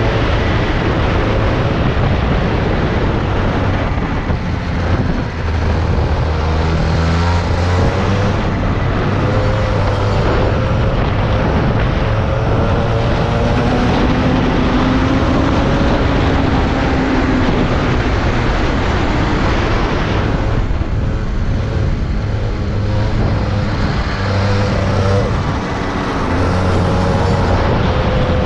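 Rotax 125 kart's single-cylinder two-stroke engine heard onboard at racing speed, its pitch rising and falling as the driver accelerates down the straights and lifts off for the corners.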